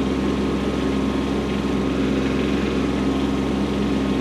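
Kubota B2601 compact tractor's three-cylinder diesel engine running steadily, pulling a landscape rake set down at full weight through snow on gravel.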